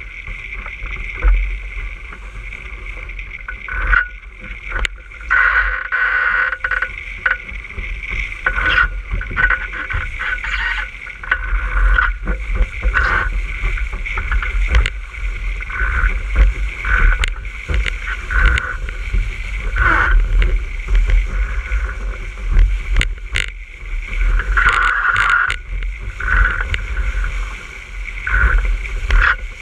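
Water rushing and splashing past the hull of an RS600 sailing dinghy under way at speed, with wind buffeting the microphone as a heavy rumble. Irregular knocks and slaps of waves against the hull come through throughout.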